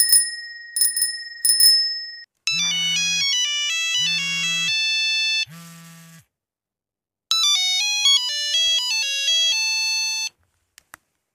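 A bicycle bell rings about four times in quick succession. Then a mobile phone ringtone, an electronic beeping melody, plays twice with a short gap between.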